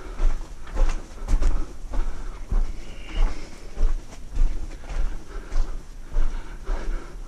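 Irregular thumps and scuffs with a low rumble, several a second at times: footsteps and handling noise on a handheld camera while walking through a mine tunnel.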